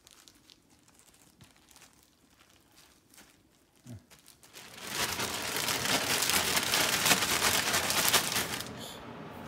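Faint rustling as cut potatoes are handled on paper towels, then a plastic zipper bag holding the potato strips is shaken, a loud dense crinkling from about halfway in that stops shortly before the end.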